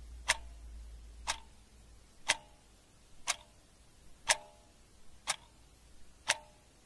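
A clock ticking once a second, each tick a sharp click with a short ring, over a low hum that fades out about two and a half seconds in.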